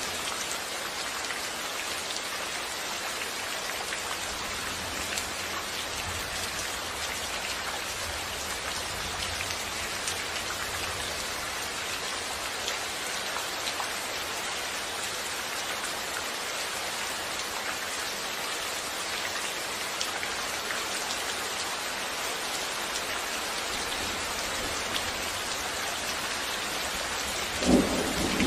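Steady heavy rain falling, an even hiss of drops. A faint low rumble comes through about a quarter of the way in, and a sudden short low boom sounds near the end.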